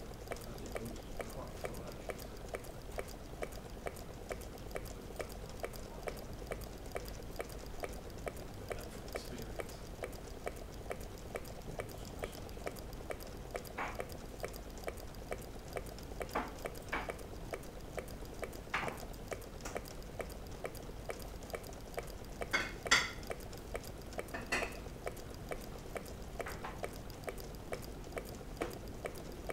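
Meccano-built Stirling engine running, its metal linkages clicking in a fast, even rhythm. A few louder clacks break in now and then, the loudest about two-thirds of the way through.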